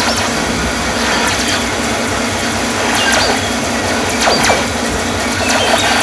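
Experimental noise music: a dense, steady wash of noise with squealing glides that fall in pitch, recurring every second or so.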